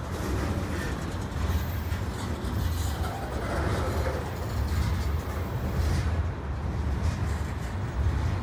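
Freight cars of a CN freight train rolling past: a steady low rumble of steel wheels on the rails.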